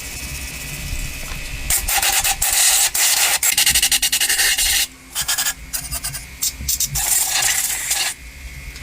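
Harsh rasping scrapes: a long run of rapid strokes starting about two seconds in, then shorter bursts of scraping near the end.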